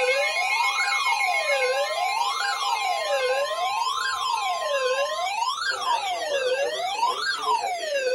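Electronic wailing alert siren, its pitch sweeping up and down evenly about once every one and a half seconds, with steady alarm tones underneath that drop out about three and five seconds in. It is the alert sound of an Emergency Alert System warning broadcast.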